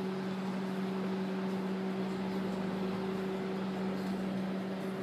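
Steady cabin noise of a car being driven: an even hum over road and engine noise.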